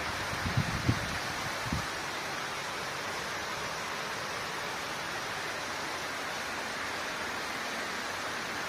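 A steady, even hiss with no tone in it, with a few short low knocks between about half a second and two seconds in.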